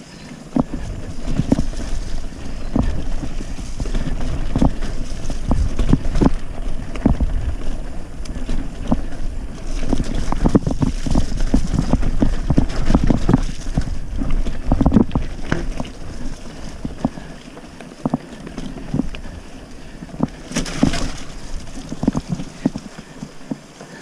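Mountain bike rolling over a rough trail: a steady low rumble with many knocks and rattles, and wind buffeting the microphone.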